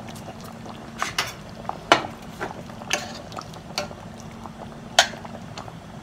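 Scattered sharp taps and clicks, about six, from hands adding Knorr Suiza bouillon to a stainless steel pot of red chile sauce, over a faint steady low hum.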